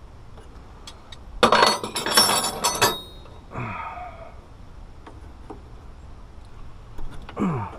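Metal hand tools clattering and clinking against one another for about a second and a half, starting about a second and a half in. Two short, quieter sounds with falling pitch come later.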